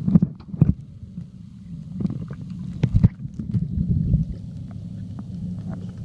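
Muffled underwater rumble of water moving around a submerged camera, with several knocks and gurgles in the first few seconds, then steadier.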